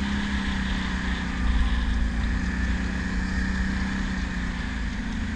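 Quad bike (ATV) engine running steadily while riding along, a low rumble with a steady hum that holds its pitch.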